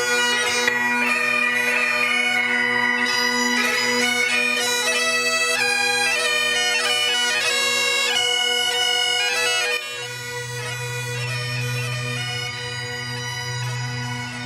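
Bagpipes playing: a melody over steady drones. About ten seconds in, the melody stops and the drones sound on alone.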